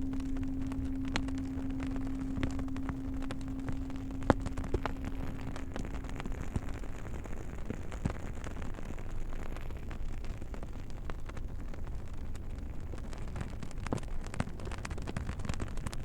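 Campfire crackling, with scattered sharp pops, the loudest about four seconds in. A low singing bowl tone rings under it and fades away about seven seconds in.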